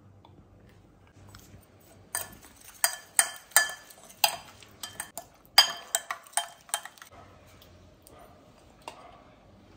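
Metal spoon stirring a thick spice paste in a ceramic bowl, clinking against the bowl about a dozen times in quick, uneven strokes. The clinks start about two seconds in and stop about seven seconds in.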